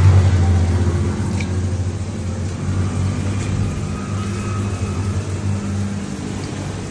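A low engine hum, loudest at the start and easing off over the first couple of seconds, then running on more quietly, with a few faint clicks.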